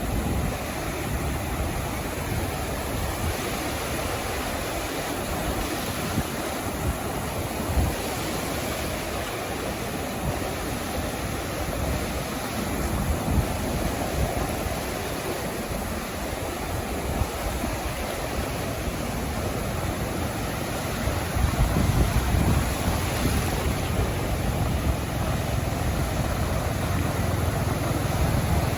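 Sea waves washing up onto a beach: a continuous rushing wash of surf that swells into a louder, deeper rumble about two-thirds of the way through.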